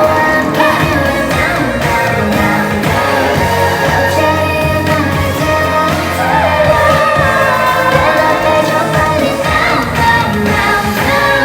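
Pop song performed live: a woman singing lead over the backing music.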